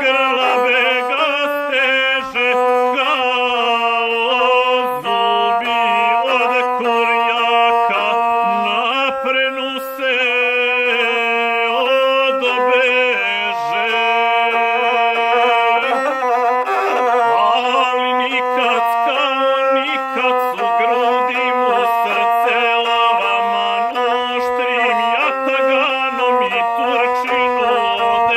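Gusle, the single-string bowed folk fiddle, played with a bow while a man sings an epic song in the traditional guslar style.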